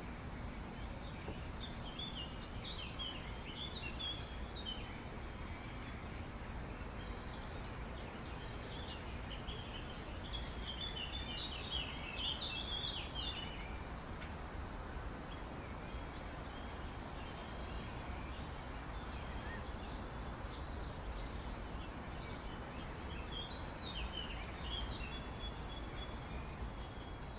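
Outdoor ambience: small birds chirping in a few short bouts over a steady low background hum.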